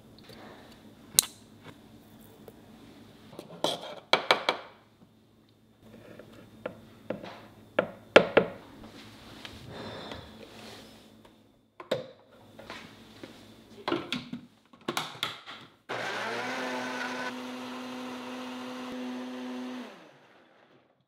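A run of knocks and clinks as the blender jar full of ingredients is handled. About sixteen seconds in, a countertop blender starts, its motor pitch rising briefly and then running steady as it grinds carrots, apple and nuts into batter, before fading out near the end.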